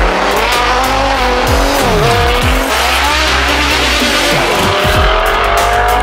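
A Nissan GT-R and a Mercedes saloon launch from a standing start and accelerate hard away, their engines rising in pitch with some tyre squeal, under bass-heavy background music.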